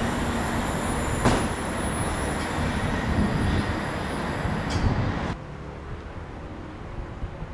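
Class 159 diesel multiple unit pulling away, its underfloor Cummins diesel engines running under power with steady rail and wheel noise and one sharp click a little over a second in. About five seconds in the sound cuts abruptly to a much quieter, distant train rumble.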